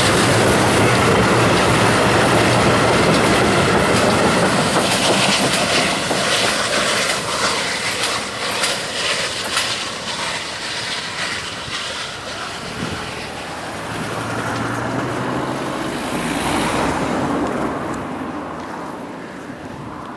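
Railway coaches of a steam-hauled train rolling past close by, their wheels clicking over the rail joints, the sound fading as the train draws away.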